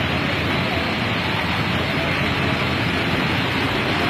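Steady street noise with a low traffic rumble, without any single sound standing out.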